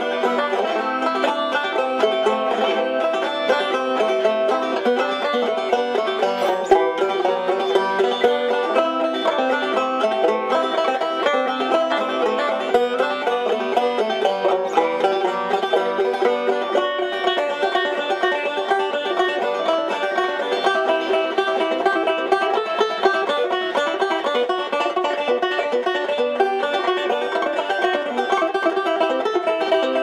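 Open-back banjo played solo, a steady stream of plucked and strummed notes in an instrumental passage with no singing.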